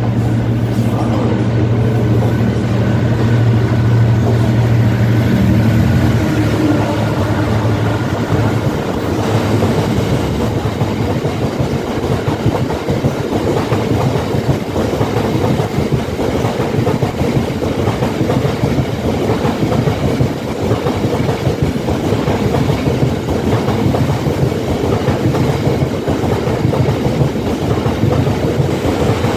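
A diesel freight locomotive's engine note is heard as the train comes through, fading after about six seconds. Then a long rake of covered hopper wagons runs past close by, its wheels clattering steadily over the rail joints.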